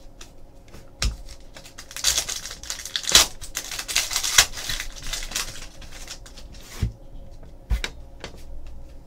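Wrapper of a trading card pack being torn open and crinkled by hand, a dense crackling from about two seconds in that stops around five and a half seconds. A few short knocks and clicks of the cards being handled come before and after it.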